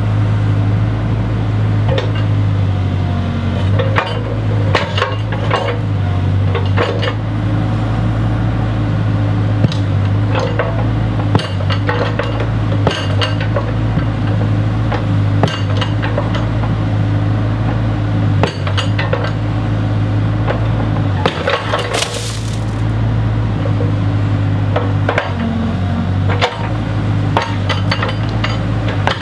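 A heavy machine's engine running steadily while brick and masonry knock and clatter as a brick wall is broken down, with a short rushing burst about three quarters of the way through.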